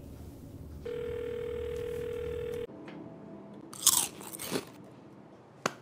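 A steady telephone tone holds for about two seconds and stops, then two loud crunchy bites of food about half a second apart, and a sharp click near the end.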